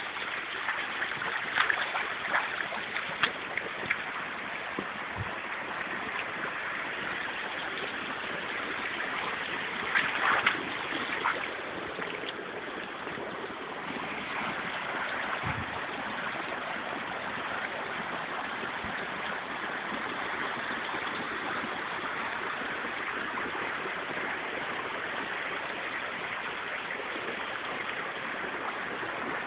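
Shallow brook running steadily over rocks, with a few brief knocks near the start and again about ten seconds in.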